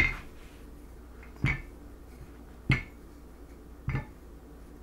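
Wooden rolling pin knocking four times, about a second and a quarter apart, as it is pushed back and forth over pastry dough on a wooden butcher-block counter; each knock is short and sharp and dies away quickly.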